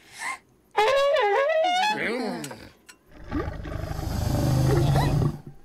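Cartoon sound effects: a loud, wavering, trumpet-like blare about a second in that trails off, then a low rumbling roar that builds from about three seconds in and stops shortly before the end.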